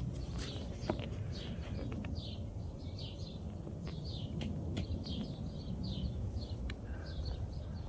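Small birds chirping, short high notes each sliding down, a few times a second, over a steady low outdoor rumble, with a few faint clicks.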